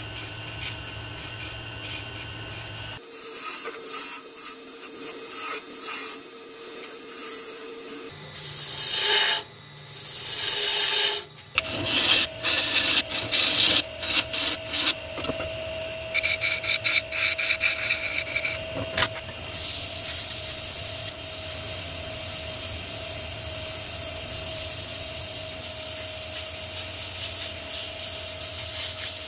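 Wood lathe running, with rubbing and scraping against the spinning wood. The sound changes abruptly several times, with loud rushes of noise about a third of the way in and a steadier rub toward the end.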